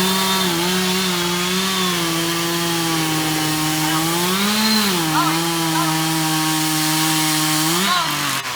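Chainsaw running at high revs and cutting wood, its pitch steady, rising briefly about halfway and again near the end, then cutting off just before the end.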